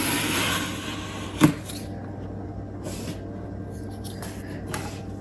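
Cardstock being handled and pressed down during hot-glue crafting: a rustle in the first second, a sharp tap about a second and a half in, then a few softer rustles, over a steady low hum.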